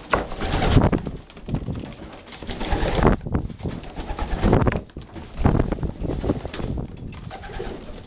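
Young racing pigeons cooing, several low coos one after another that swell and fade.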